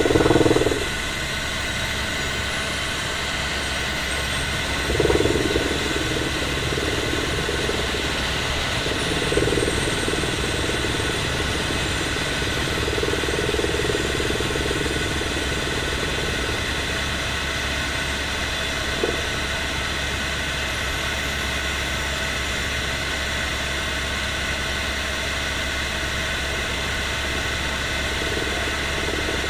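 Helicopter cabin noise in flight: a steady deep rotor drone with a steady whine above it, and a few brief louder swells, right at the start and about five and ten seconds in.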